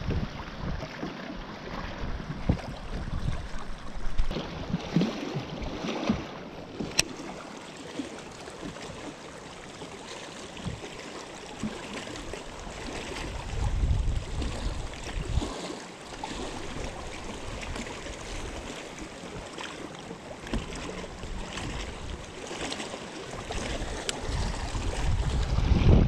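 Wind gusting on the microphone and water lapping at a small fishing boat, the low rumble swelling around the middle and near the end, with a single sharp click about seven seconds in.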